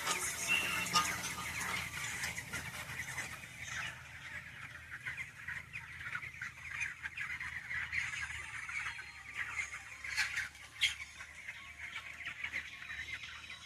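A flock of chickens in a poultry shed, many birds calling at once in a steady chatter, over a constant low hum.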